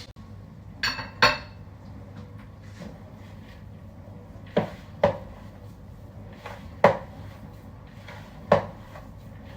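Spoon knocking against a mixing bowl while stirring ground almond filling: six sharp clinks, two close together about a second in, two more around five seconds, then single ones near seven and eight and a half seconds.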